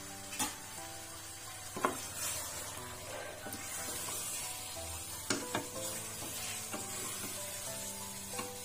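Chicken in spice paste and broth sizzling in a stainless steel pot while it is stirred with a spatula, with a steady hiss and a few sharp knocks and scrapes of the spatula against the pot. Soft background music with held notes plays underneath.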